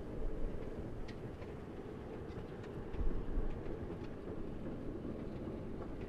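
Train of loaded narrow-gauge sugar cane bins rolling past: a steady low rumble of wheels on rail, with scattered short high clicks and a heavier bump about three seconds in.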